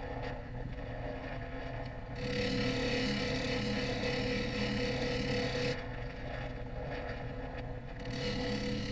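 Bench grinder running with a steady hum while a steel chisel is pressed against its old grinding wheel, grinding nicks out of the edge: a hissing grind from about two seconds to six seconds, and again starting near the end.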